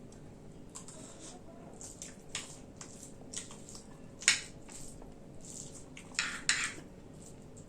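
Close-up eating sounds of vegetable khichdi: wet chewing with scattered short crunches and clicks, a sharp click about four seconds in and a quick run of crunches a little after six seconds.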